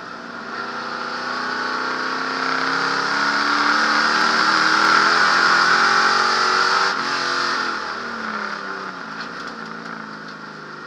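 Ford Galaxie's 427 V8 racing engine heard from inside the cabin, pulling hard with the revs and loudness climbing for about seven seconds. The note then breaks and falls away, getting quieter toward the end.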